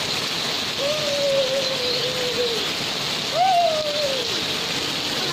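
Steady rain falling on grass and the garden. Over it come two long drawn-out vocal calls, most likely a child's 'oooh' sounds, each lasting a second or two. The second call starts higher, falls away, and is the loudest.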